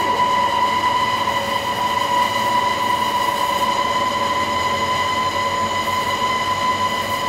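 Workshop machinery running steadily: a constant high whine with evenly spaced overtones over a rough hiss, unchanging throughout.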